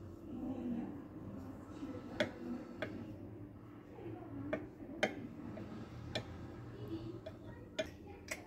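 Knife cutting down through the crust of a baked orange loaf cake: small, irregular crackling clicks, roughly one a second, over a faint low hum.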